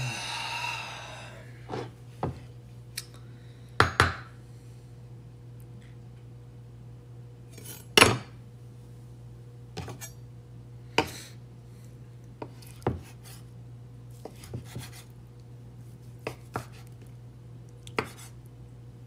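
Chef's knife slicing through a soft sous-vide chicken breast and knocking on a wooden cutting board: scattered sharp knocks every second or two, the loudest about eight seconds in. A short rustling burst comes at the start, and a steady low hum runs underneath.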